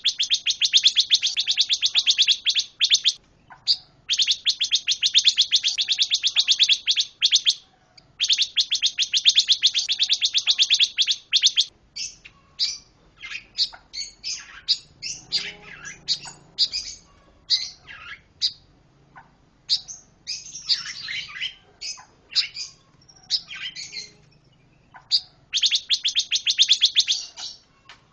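A pancawarna songbird singing: long, rapid trills of a few seconds each, broken in the middle by a run of varied short chirps and whistled notes, then a trill again near the end.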